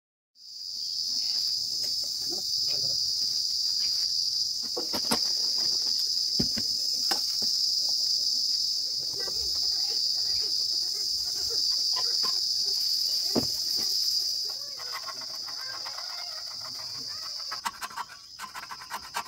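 A steady high-pitched drone of insects, with scattered clinks and knocks of hand tools on a steel bench frame. From about three-quarters of the way in, a rough rasping scrape joins in as old paint is scraped off the metal.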